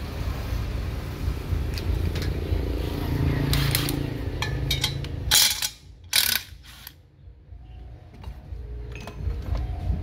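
Two short bursts from a cordless impact driver on the water pump impeller's centre nut, about halfway through, over a low steady rumble that stops with them.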